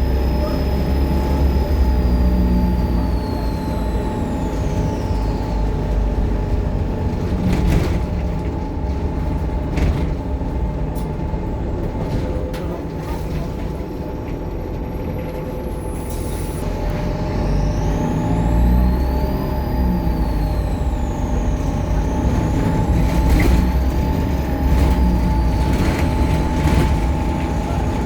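Optare Solo bus's diesel engine running under way, with a high turbo whine that rises and falls twice as the bus accelerates and eases off, over a steady low engine rumble. A few sharp knocks or rattles come through in between.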